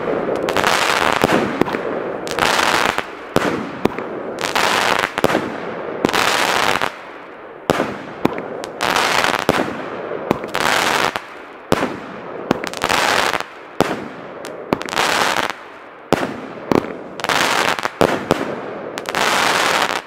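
Firework battery firing shot after shot, each shot followed by a loud rush of crackling as white crackling stars burst in the sky, about one every second or two.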